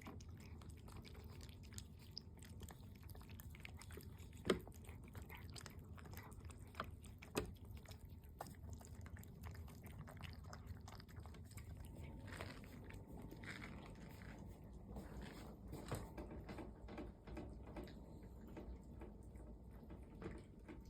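House cats eating, chewing their food with many small irregular clicks and a few sharper ticks.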